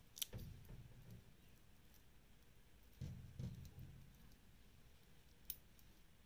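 Metal link watch bracelet clinking and clicking faintly as it is handled and fastened around the wrist: a click just after the start, a few clicks with handling rumble around three seconds in, and one sharp click near the end.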